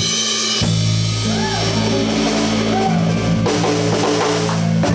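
Blues band playing out the end of a song: electric guitar, bass and drum kit hold a closing chord, with bent guitar notes, drum fills and cymbal crashes.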